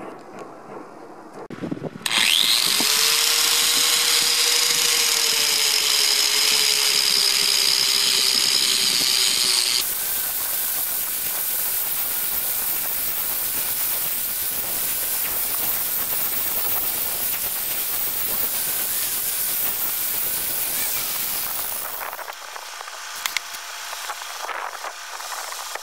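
Electric angle grinder with a wire cup brush, switched on about two seconds in and spinning up to a steady whine, then scouring rust off a steel rail with a continuous harsh grinding noise. Near the end it falls quieter, with a few sharp clicks.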